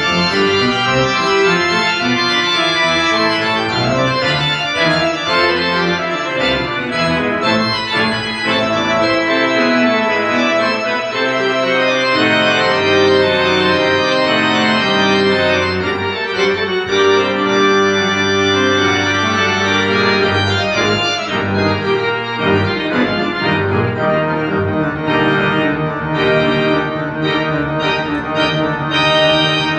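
Church organ being played: full held chords on the manuals over sustained pedal notes in the bass.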